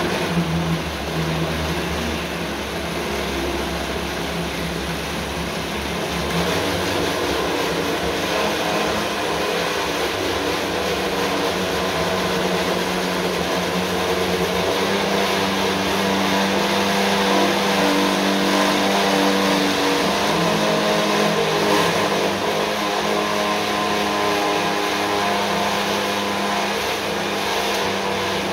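Countertop blender motor running steadily while pureeing a wet marinade of onion, garlic, ginger and scallion in its jar; a little louder from about six seconds in.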